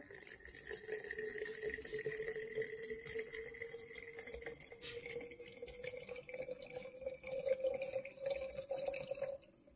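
Water pouring in a thin stream from a glass measuring cup into a tall glass jar, a steady trickle with a ringing tone that slowly rises in pitch as the jar fills. It stops near the end.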